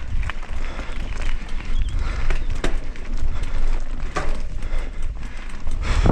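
Mountain bike descending a rough enduro trail: wind rumbles steadily on the microphone while the bike rattles and clatters over rocks and bumps, with frequent sharp knocks.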